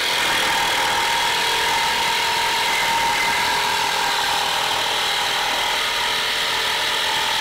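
Cordless Makita jigsaw sawing a curve into a wooden plank, running steadily at a constant speed.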